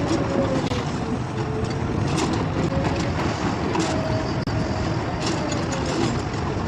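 Heavy construction machine's engine running steadily, with scattered clicks and a wavering mid-pitched tone over the rumble; the sound drops out for an instant about four and a half seconds in.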